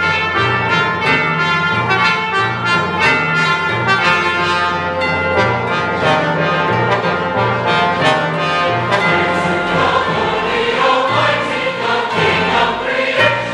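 Choir and orchestra performing together, playing a run of regularly accented chords. The choir's singing comes forward in the last few seconds.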